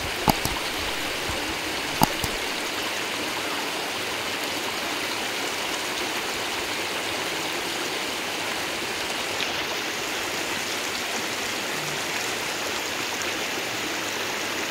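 Shallow stream rushing over rock at the head of a waterfall, spilling in a small cascade: a steady, even rush of water. Two short sharp clicks come near the start, about two seconds apart.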